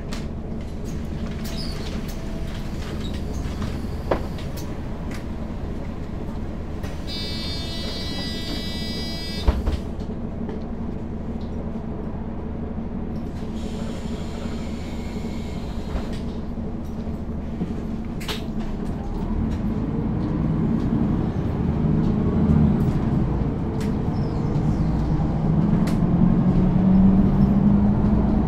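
Interior ride sound of a 2007 Mercedes-Benz O530 G II articulated city bus with Voith automatic gearbox: a steady low engine and road drone. A high electronic beep sounds for about two seconds some seven seconds in, with a sharp click just after it, and a fainter beep follows around fourteen seconds. The engine grows louder from about twenty seconds in.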